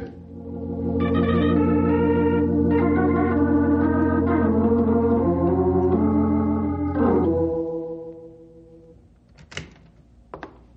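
Organ music bridge between scenes of a radio drama: a run of sustained chords that shift pitch several times, then fade out about three quarters of the way through. A few short faint knocks follow near the end.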